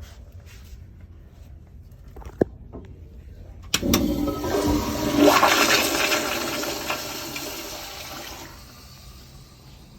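Crane Whirlton toilet flushing: a sharp click a little over two seconds in, then a sudden rush of water about a second later that runs for about five seconds and fades away.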